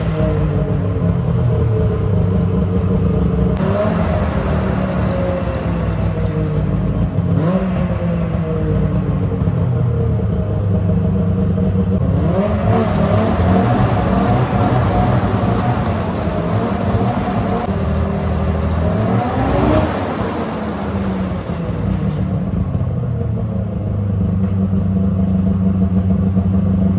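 Yamaha SX-R snowmobile's three-cylinder two-stroke engine running on a stand, its revs rising and falling several times, with the sharpest climb and drop about 20 seconds in. It is being run to check that the newly fitted clutch still engages and the track spins.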